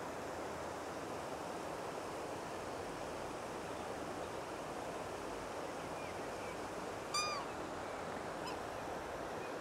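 Steady rush of water tumbling through a brook, with one loud, short ringing call from a black swan about seven seconds in and a few faint short chirps around it.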